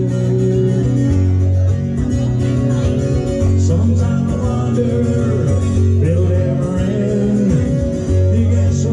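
Acoustic guitar strummed, with a man singing over it into a microphone: a live solo vocal-and-guitar performance.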